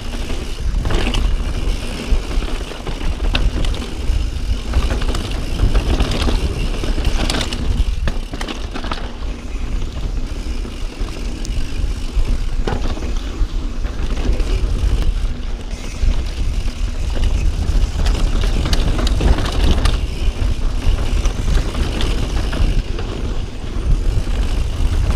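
Santa Cruz Bronson mountain bike ridden fast down dirt singletrack: tyres rolling and crunching over dirt and rock, with scattered knocks and clatters as the bike goes over bumps, over a steady low rumble.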